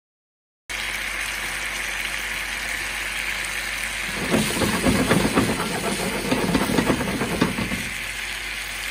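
Chicken pieces in a thick sauce sizzling in a frying pan, a steady hiss that starts suddenly about a second in. From about four seconds in, the sauce bubbles and pops busily for several seconds, then settles back to the hiss.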